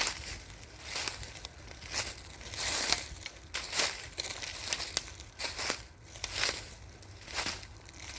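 Footsteps walking through dry fallen leaves, each step a crunching, crackling rustle at about one step a second.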